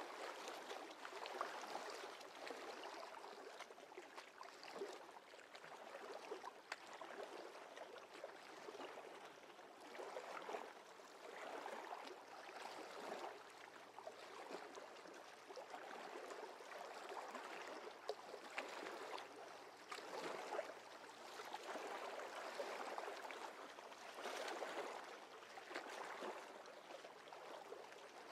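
Faint running water, an even rushing hiss that swells and eases every few seconds.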